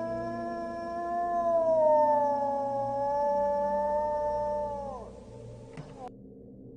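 A wolf howling: one long held howl, its pitch wavering slightly, that drops away and ends about five seconds in. A quieter low steady drone follows.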